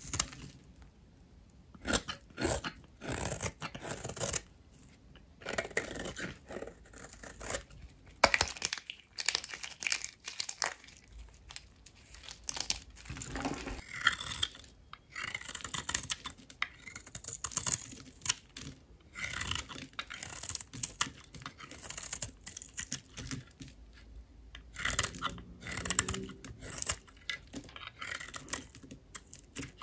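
Bars of dry soap being cut with a blade, giving irregular crisp crackling and crunching as the brittle soap splits, with short pauses between cuts.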